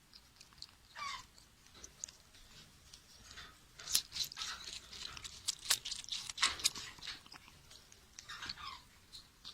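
Parrot biting and chewing grapes: irregular wet crunching clicks, thickest in the middle, with a short falling squeak about a second in and again near the end.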